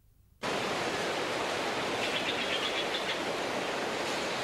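A steady, even rushing noise that starts suddenly about half a second in and holds at one level.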